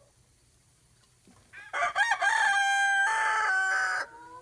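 A rooster crowing: one long cock-a-doodle-doo starting about a second and a half in, held and stepping down in pitch before it breaks off, followed by fainter, lower calls near the end.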